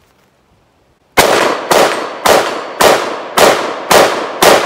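AR-15 rifle firing a fast string of semi-automatic shots, seven in all, about two a second, starting about a second in. Each shot rings out and trails off in echo.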